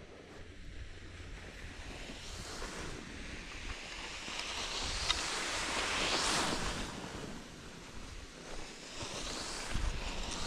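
Skis sliding and scraping on packed snow as skiers pass close by, a hissing swish that swells and fades three times, loudest about the middle.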